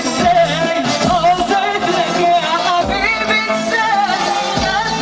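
A woman singing an Arabic popular song live into a microphone, her voice wavering with ornaments over an amplified band, with hand-held frame drums beating low thumps.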